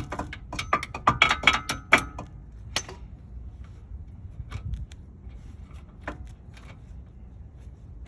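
Hammer blows on a socket, about ten quick metallic strikes in the first two seconds, then one more and a few light taps, driving it onto a bolt head that is rounding out.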